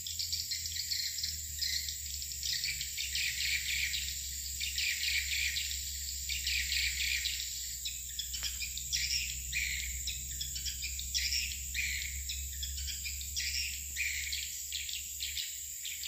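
Swiftlets twittering around a swiftlet house: a dense, continuous chatter of rapid chirps, with one falling note about eight seconds in. A steady high-pitched whine runs behind it.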